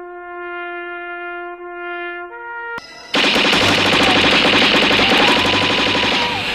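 A single held brass-like note that steps up in pitch a little over two seconds in and breaks off, then, about three seconds in, a sudden much louder, harsh rattling blast of noise that runs on, as in an ear-splitting edited sound effect.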